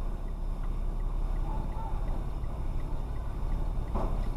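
Steady low road and engine rumble of a car being driven, heard inside the cabin. A faint even ticking runs through it at about three ticks a second, and there is one short knock near the end.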